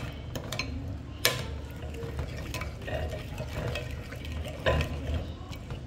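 Metal spoon stirring a wet, oily sauce in a ceramic bowl, scraping and swishing around the bowl, with a few sharp clinks of spoon on ceramic, the loudest about a second in and near the end.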